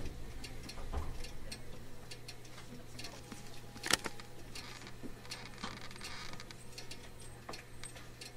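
Inside a JR Kyushu 813 series electric train standing still, with no traction-motor sound: a steady low hum with scattered light clicks and ticks, one sharper click about four seconds in.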